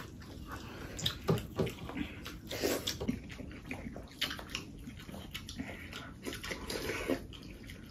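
Eating by hand: wet squishing as a hand gathers curry-soaked rice and egg on a steel plate, with chewing and lip smacks, coming as short, uneven sounds.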